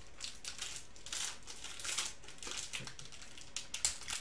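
Foil trading-card pack wrapper crinkling as it is handled and torn open, in quick, irregular rustles.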